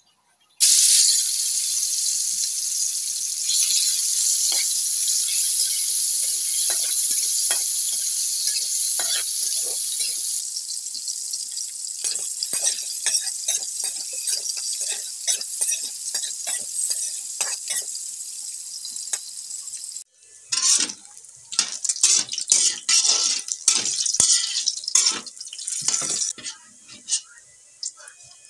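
Raw pork pieces hit hot oil in a steel wok and start sizzling loudly, the sizzle easing slowly as they fry. A metal spatula begins scraping and clacking against the wok. About twenty seconds in the sound stops abruptly, then returns as a quieter sizzle of browning pork under frequent spatula scrapes and clacks.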